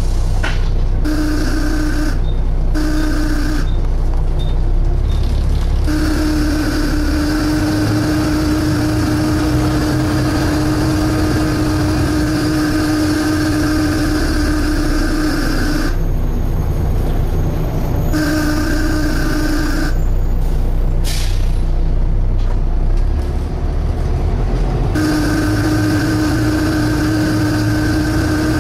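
On board a Volvo B7TL double-decker bus, the engine rumbles steadily under a loud suction noise. The suction noise is a steady droning tone that switches on and off several times.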